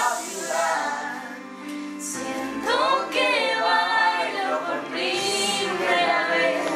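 Young voices singing a song together unaccompanied, a cappella, with long held notes and a short lull about two seconds in.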